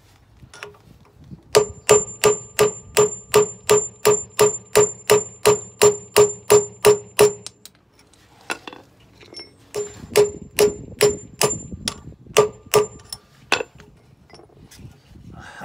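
Hammer blows on a punch driving out the lock barrel of a Westfalia detachable towbar, the barrel seized by corrosion. The blows come steadily, about three a second, each ringing metallically; a run of about sixteen starts a second and a half in, then after a short pause about nine more.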